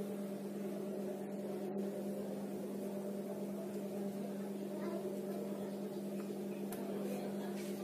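Steady electrical hum, one low unchanging tone with fainter higher tones above it, and a few faint short scrapes of a marker on a whiteboard near the end.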